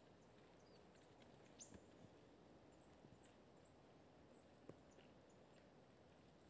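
Near silence in snowy woodland, with a few faint, very short, high-pitched chirps of small birds and a couple of faint clicks.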